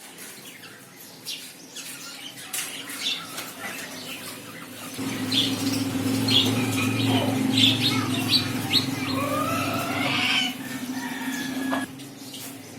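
Parrot squawking and chirping in short calls, some rising in pitch. From about five seconds in, a steady low hum joins and cuts off suddenly near the end.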